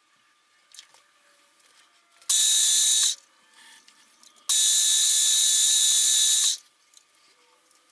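Twist drill in a milling machine's chuck cutting into a metal block: two bursts of loud, high, hissing screech, about a second and then about two seconds long, each starting and stopping sharply as the bit is fed in and pulled back.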